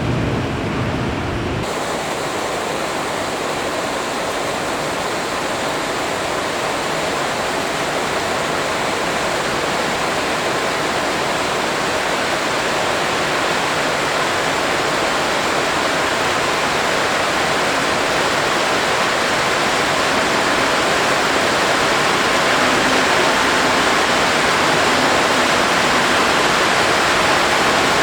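Airport fire-tender water cannons spraying in a water salute: a steady rushing hiss of water that grows slowly louder.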